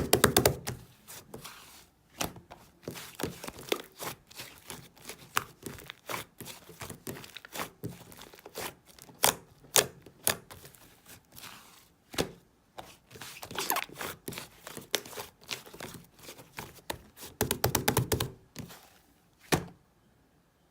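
Slime being squeezed and worked by hand, giving a fast, uneven run of sharp clicking pops, with denser flurries at the start, about two-thirds of the way through and near the end; it stops a second before the end.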